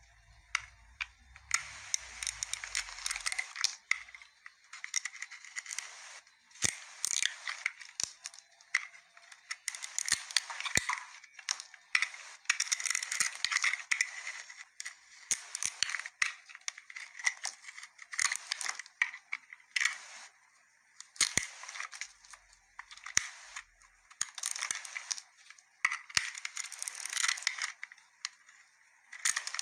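A knife carving a bar of soap: repeated scraping, shaving strokes, each a second or two long, with short pauses between and a few sharp clicks.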